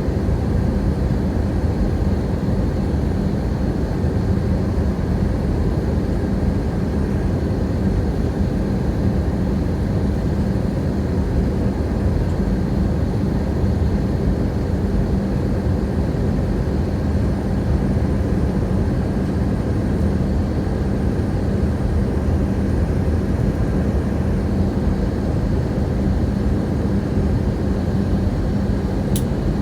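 Airplane in flight: steady engine and air noise with a constant low hum, and a faint tick near the end.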